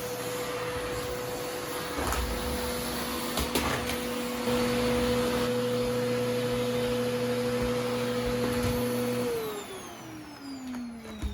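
Vacuum cleaner running with a steady motor whine, with a few knocks along the way. About nine seconds in it is switched off and the motor winds down, its pitch falling.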